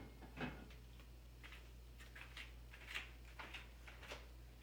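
Faint, irregular clicks and rustles, about half a dozen scattered through, over a low steady hum.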